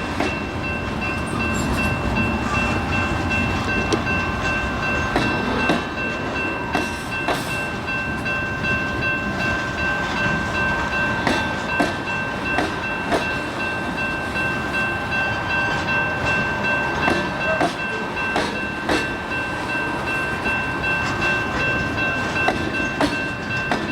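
Union Pacific train moving through the yard during remote-control switching: a steady rumble of rolling locomotives and railcars with scattered sharp clicks and clanks. Two steady high-pitched tones are held throughout.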